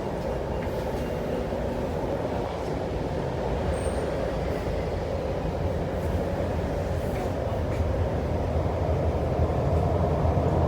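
Cabin noise of a CRRC Changchun EMU on the MTR Tuen Ma Line running between stations: a steady rumble and rushing noise that grows a little louder over the last few seconds.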